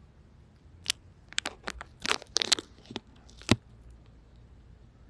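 A run of short, sharp crunching clicks from something being handled close by, about a dozen over two and a half seconds, the last one the loudest.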